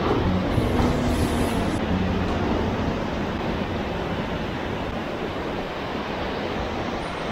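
Sea surf breaking and washing over rocks in a steady rush.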